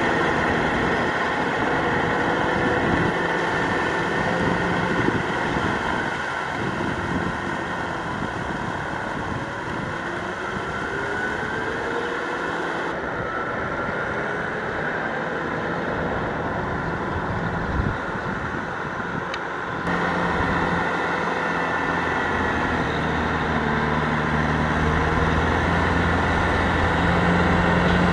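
Kubota M6040SU tractor's diesel engine running under load as it pulls a rotary tiller through a flooded paddy, with the churning of water and mud. The engine's low hum grows stronger and louder over the last several seconds.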